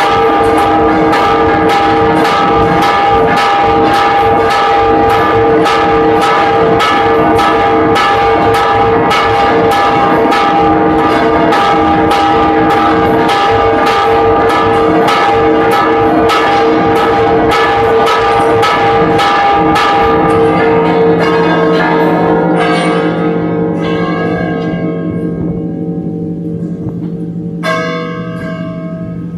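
Guadalajara Cathedral's church bells in a repique sounding the first call to Mass: several bells struck rapidly by clapper ropes, about two or three strikes a second. The fast striking stops about 20 seconds in and the bells ring on and fade, with a few single strikes near the end.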